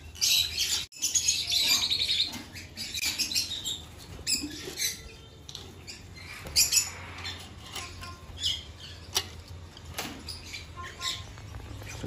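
Many small parrots, lovebirds, chirping and squawking in a breeding aviary: a dense chatter of short, shrill calls overlapping throughout.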